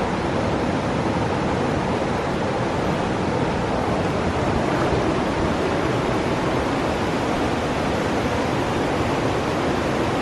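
Steady rushing of a fast-flowing river, an even wash of water noise with no break.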